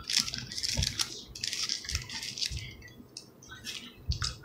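Eating sounds close to the microphone: crackly chewing and rustling of a sandwich, dense for about two and a half seconds, then a few scattered clicks.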